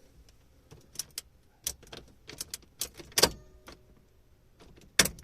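A series of sharp clicks and knocks from an ignition key and its keyring being turned and rattled in a Fiat Elba's ignition switch, the loudest about three seconds in, with no starter or engine sound in response: the car has no electrical contact.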